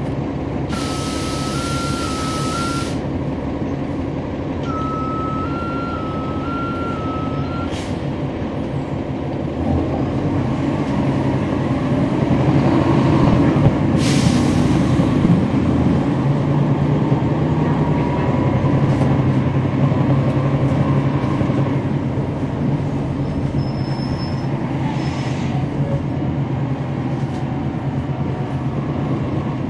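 Inside a NABI 40-SFW transit bus: the Cummins ISL9 diesel runs steadily while a burst of air hiss sounds with an alternating two-tone beep, and the beep sounds a second time. From about ten seconds in the engine grows louder as the bus accelerates, with another short hiss of air about fourteen seconds in.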